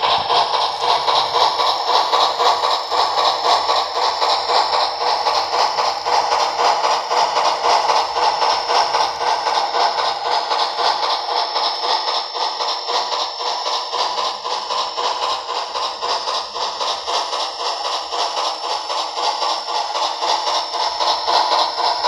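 Steam-locomotive chuffing from a Soundtraxx Tsunami2 sound decoder, played through the small onboard speaker of an HO-scale Western Maryland 4-6-6-4 Challenger model as it runs: a fast, steady beat, thin and without bass.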